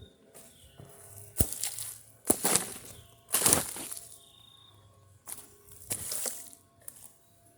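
Several short bursts of rustling and scraping as things are moved around and rummaged through, with a sharp knock about a second and a half in.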